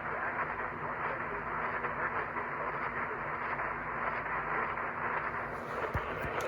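Steady hiss of radio static with a faint low hum under it; a short click about six seconds in.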